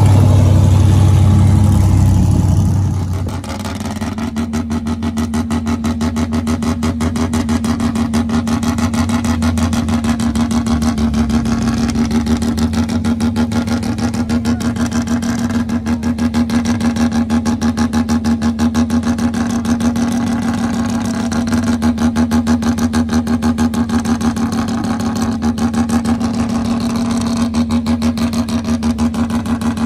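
A car engine running loud and deep for about the first three seconds, then a car engine idling with a steady note and a fast, even, lumpy pulse for the rest of the time.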